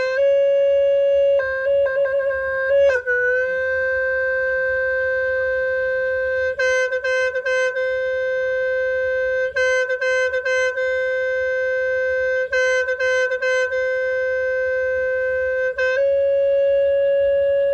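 Khmer snaeng horn holding one long, steady note, with a brief dip in pitch about three seconds in. Three times the note is broken by a quick run of four short stops.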